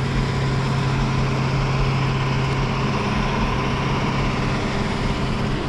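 An engine running steadily at idle: a low, even hum over a wash of outdoor noise.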